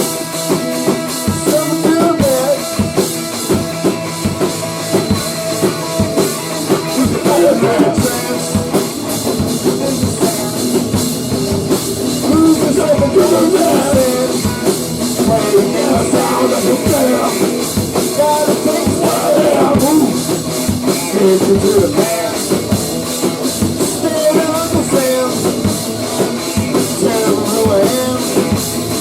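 Grunge/hardcore rock band playing loudly, the drum kit pounding under dense instruments.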